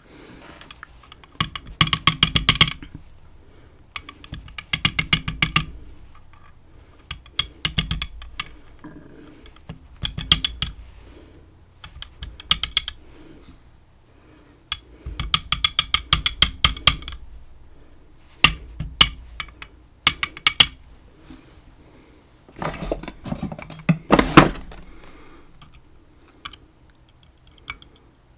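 Small metal parts of a lock being taken apart, clicking and rattling in repeated quick bursts, about eight in all, as the pins are worked out of the lock.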